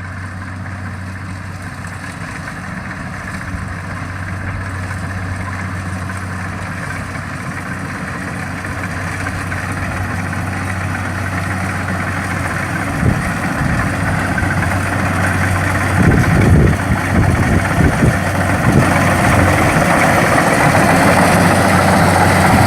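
Kubota DC-70 rice combine harvester's diesel engine running at a steady hum, growing steadily louder as the machine comes closer. From about two-thirds of the way in, irregular low rumbling thumps are heard over it.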